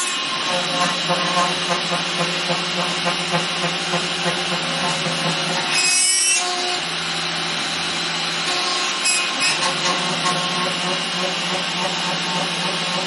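CNC milling machine's spindle running and an end mill cutting into a wood block: a steady motor tone under a fast, even chatter from the cut. Near six seconds a higher whine sweeps up and down for about half a second.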